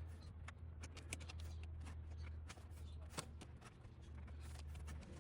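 Irregular light clicks and rustling of hands handling tools and parts during hands-on repair work, over a steady low hum; one sharper click about three seconds in.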